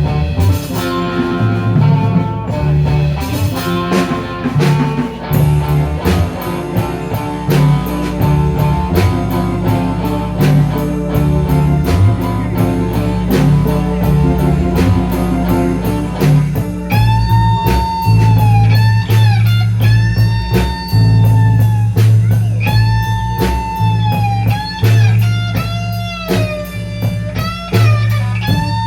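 Live rock band playing: electric guitar, bass and drums, with a steady drumbeat. About halfway through, a lead line of long notes that bend and waver in pitch comes in over the band.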